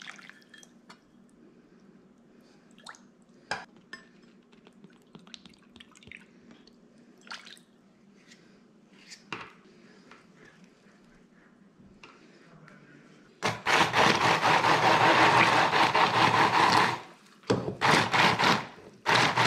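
Handheld immersion blender puréeing a liquid sauce in a shallow wok. It starts about two-thirds of the way in, runs for a few seconds, then comes in two shorter pulses. Before that there are only a few light clinks of a spoon and can against the pan.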